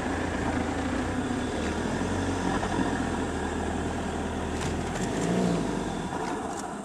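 Game-drive vehicle's engine running as it drives slowly over sand, a steady low hum that drops away about five seconds in, the sound then fading as the vehicle comes to a stop.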